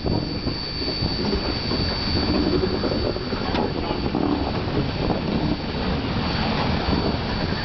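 Skunk Train No. 45, a Baldwin 2-8-2 steam locomotive, backing slowly under steam: exhaust, hiss and the clank of its side rods, with a thin steady high tone.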